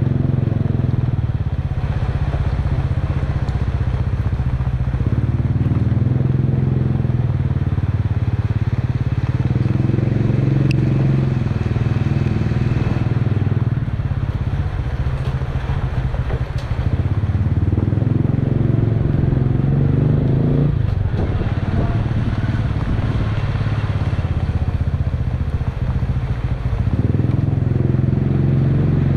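Motorcycle engine running as the bike rides slowly, heard close from a camera mounted on the bike. Its pitch drops and rises several times as the throttle changes, under a steady hiss of wind and road noise.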